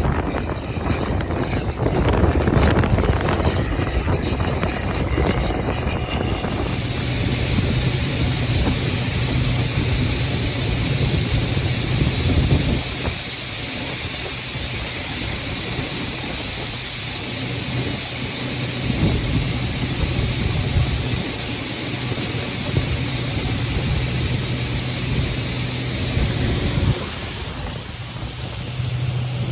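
Farm machine engine running steadily with a low hum. About six seconds in, a steady hiss joins it and runs on until near the end.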